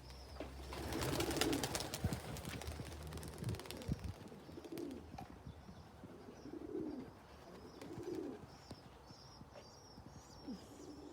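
Pigeons cooing, a few low coos spread through, with a string of faint high chirps and a brief rustle about a second in.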